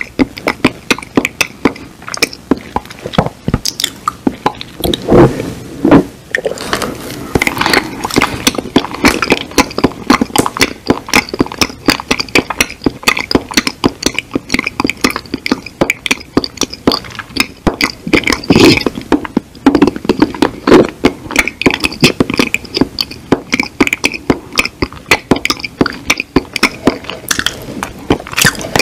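Close-miked mouth sounds of mock eating with no food: a fast, dense run of wet lip smacks, tongue clicks and chewing noises, with a few louder, longer smacking bursts about five seconds in and again about two-thirds of the way through.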